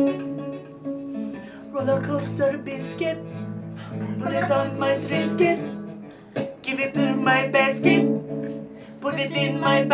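Acoustic guitar strummed in a steady rhythm, with a voice singing along in places. A wooden double flute's held notes die away at the very start.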